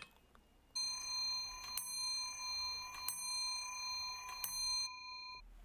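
Hammer of an 18th-century clock's striking train striking its bell four times, about 1.3 s apart, each blow ringing on over the last. The train is being run under a trial driving weight of about 900 g on a 77 mm pulley (about 0.68 Nm) to judge how fast it strikes. The ringing is cut off sharply near the end.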